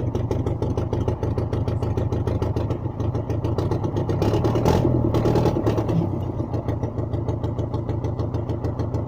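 Small tracked vehicle's engine idling steadily, rising briefly a little after the middle before settling back.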